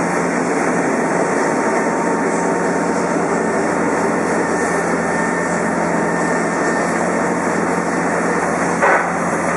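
McDonnell Douglas MD-11 taxiing at close range, its General Electric turbofans running with a steady jet whine and rush. A short knock comes near the end.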